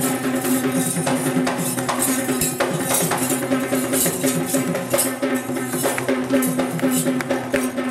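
Traditional Kandyan drums (geta bera) playing a fast, dense rhythm, with a steady tone held underneath.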